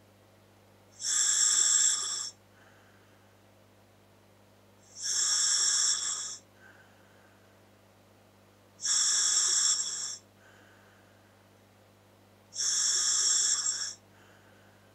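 Scuba regulator feeding a Dräger full-face mask, hissing as air is drawn through it on each inhalation: four breaths about four seconds apart, each hiss lasting just over a second, with a much fainter exhale shortly after each.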